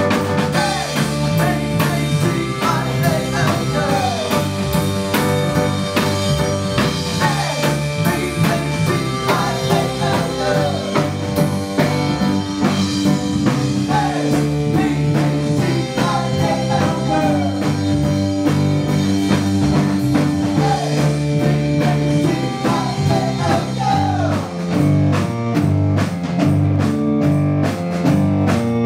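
Blues-tinged rock song playing continuously: steady drum kit beat, a bass line and electric guitar.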